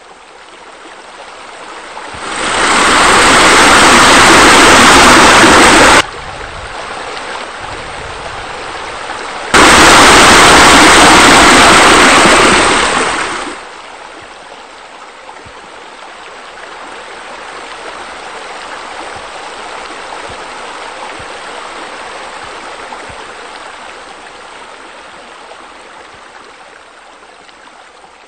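Running and splashing water of pool fountains and spillways, a steady rush. It swells loud for about four seconds, drops suddenly, jumps back loud for another four seconds, then settles to a softer rush.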